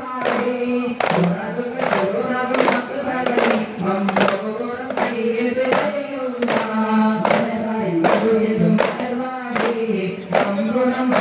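A group of boys singing a song in unison while beating hand-held frame drums (daf) in a steady beat, as in a Kerala daff muttu performance.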